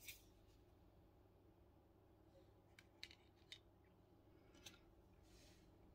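Near silence, broken by a few faint clicks and a brief soft swish near the end: oracle cards being handled and drawn from the deck.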